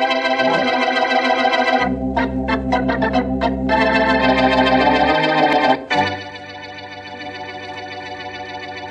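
Organ playing a radio drama's opening theme in loud held chords. About two seconds in it breaks into short choppy chords, then swells to a held chord that drops to a softer sustained chord about six seconds in.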